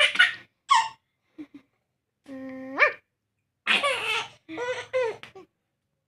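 A baby laughing and squealing in short bursts, with one longer held note a little over two seconds in that rises at its end.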